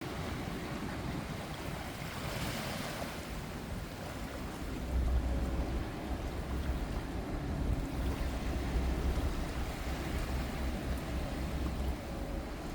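Ocean surf: waves washing and breaking on the shore, one brighter wash about two seconds in. A heavy low rumble of wind on the microphone joins from about five seconds in and drops away shortly before the end.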